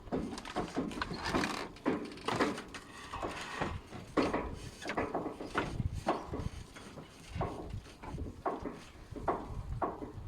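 Irregular short clicks and knocks, roughly two a second, over a low rumble: handling noises.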